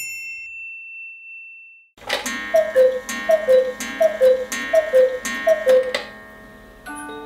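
Mechanical Black Forest cuckoo clock striking five: five two-note cuckoo calls about three quarters of a second apart, each paired with a ringing metallic strike. Near the end the clock's music movement starts playing a tinkling melody.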